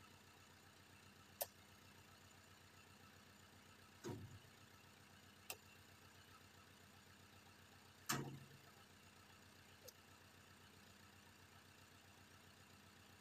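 Oil palm fresh fruit bunches thudding as they are tossed up into a lorry's loaded wooden bed, with two heavier thuds about 4 and 8 seconds in and a few short sharp knocks between. A faint steady engine hum runs underneath.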